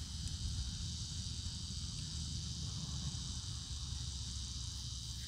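Steady, faint chorus of insects chirping in a high even drone, with a low rumble underneath.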